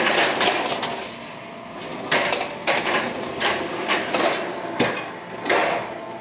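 Stainless-steel oven loader sliding on its rails out of a deck oven, then clanking with a series of about six sharp knocks, roughly one every two-thirds of a second, as the loaves are brought out.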